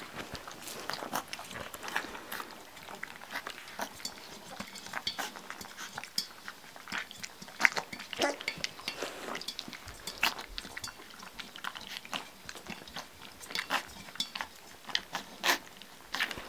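Young yellow Labrador puppies lapping and slurping milk from a stainless steel saucer feeding dish at their first try at feeding from a dish, with many irregular clicks and clinks of paws and mouths against the metal.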